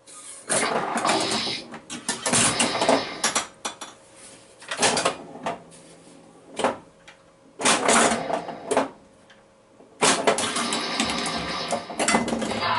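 Bally Flash Gordon pinball machine in play during its final battle mode: the clatter of the ball and coils mixed with electronic sound effects from its replacement sound board, coming in several loud bursts with short lulls between them.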